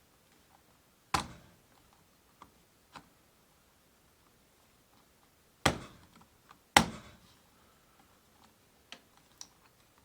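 Horn cap being pushed and knocked onto a Jeep CJ7 steering wheel hub: three sharp knocks, about a second in and twice close together past the middle, with faint ticks between. The cap is not yet latching into its notch.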